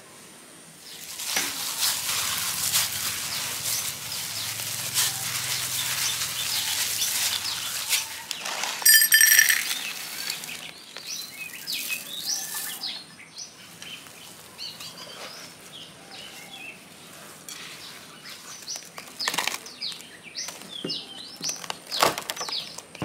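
A rubber spatula scrapes and folds stiff cookie dough against a glass mixing bowl for the first several seconds, with a brief loud squeak about nine seconds in. After that, small birds chirp repeatedly in the background, with an occasional click from the bowl.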